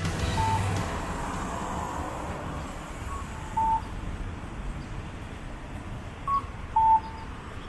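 Steady low street rumble with short electronic beeps: a high beep followed by a lower one half a second later, the pair coming back about every three seconds.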